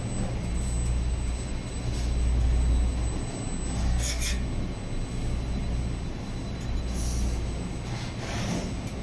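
Belt-driven elevator traction machine running as the car rides up the shaft: a steady low rumble and hum, with brief scraping hisses about four seconds in and again near the end.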